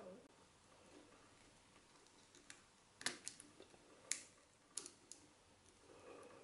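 Near silence with a handful of faint, light clicks in the second half as the new treadle belt and its metal staple are handled where the belt passes through the belt plate.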